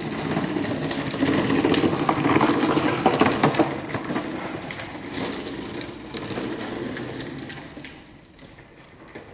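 Rapid mechanical clatter from a small machine, loudest in the first few seconds and fading away over the last few.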